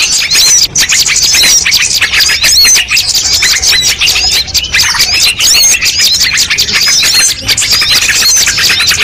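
A bird-lure recording of many small birds calling together: a dense, loud, unbroken chatter of rapid high chirps and short whistled notes, mixed from several species to draw birds in.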